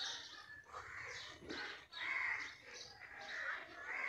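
Birds calling in the background: a run of short, irregular calls.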